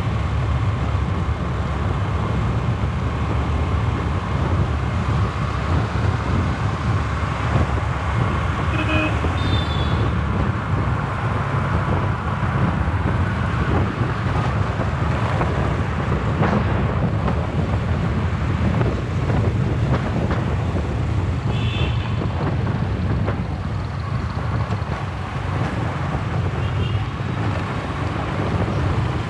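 Riding a motor scooter in town traffic: steady engine and road noise with a heavy low rumble, and a few short high beeps about a third of the way in and twice more later.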